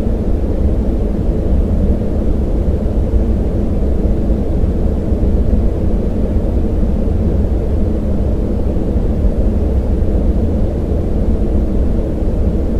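Steady synthetic yellow noise: a soft, deep hiss like brown noise with a boosted band in the low-middle range, with no change or break.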